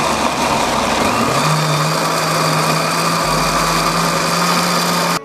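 Electric kitchen blender running, blending a liquid mixture of guava, water, sweetened condensed milk and sugar into juice. The steady motor noise carries a hum that settles in about a second and a half in, and the sound cuts off suddenly at the end.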